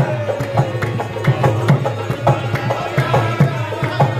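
Live qawwali: harmonium chords and a hand drum (dholak) keeping a steady rhythm, with a singing voice and hand claps.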